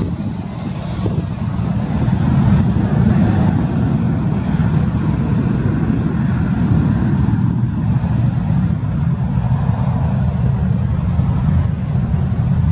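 Airbus A321 jet engines at takeoff power as the airliner starts its takeoff roll: a loud low rumble that swells about two seconds in and then holds steady.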